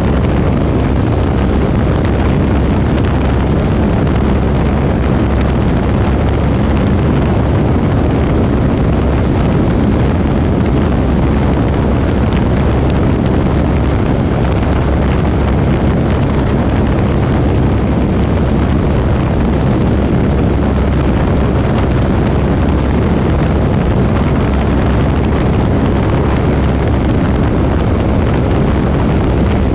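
Light propeller airplane's engine droning loudly and steadily.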